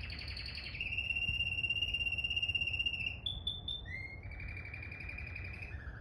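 Male canary singing a string of rolling trills. Each trill is held a second or two at one pitch, then the song steps to a new trill, higher, then lower.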